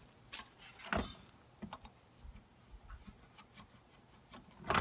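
Scattered light clicks and knocks from a rear wing's metal mounting brackets and bolt being handled and fitted against the car's hatch. The loudest knocks come about a second in and near the end.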